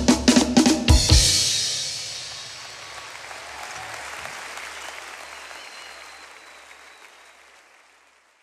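Drum kit and percussion finishing with a fast run of hits into a final crash about a second in. The cymbals ring and fade, with applause following and dying away.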